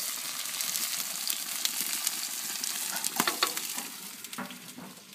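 Vegetables frying in a hot paella pan on a grill, a steady crackling sizzle as the onions begin to caramelize. A few clicks and scrapes come a little after three seconds in, and the sizzle grows fainter near the end.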